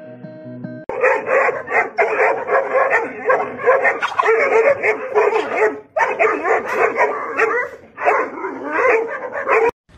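Dogs barking in rapid, nearly continuous volleys with high-pitched yaps and whines mixed in. It starts about a second in and cuts off abruptly just before the end.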